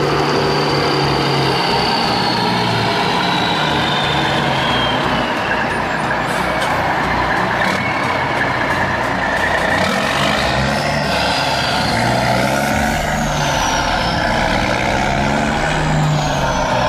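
Heavy vehicle engine running steadily, with a high whine that slowly falls in pitch over the first several seconds and rises again later.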